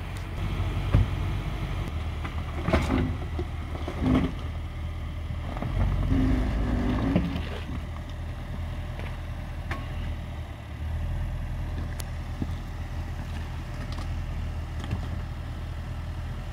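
Range Rover Sport's engine running low and steady as the SUV crawls slowly over a rocky trail, with a few sharp knocks and clicks scattered through it.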